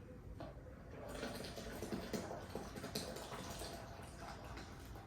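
Freshly pressed cucumber juice being poured from the juicer's jug into another container, a faint uneven trickle of liquid with small knocks.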